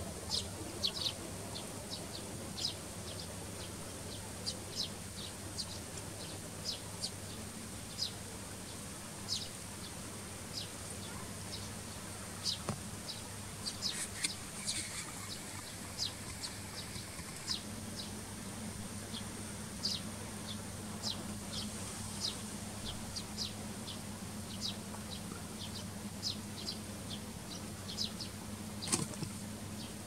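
Eurasian tree sparrows chirping: many short, sharp chirps, one or two a second at an uneven pace, a little louder around the middle and once near the end. A steady low hum runs underneath.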